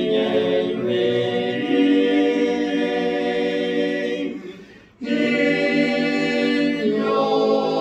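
Men's barbershop chorus singing four-part harmony a cappella, holding long chords. The singing fades away about four seconds in and comes back in together about five seconds in.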